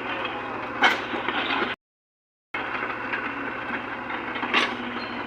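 Excavator working: its engine running steadily with two sharp metallic clanks, about a second in and near the end. The sound cuts out completely for under a second about two seconds in.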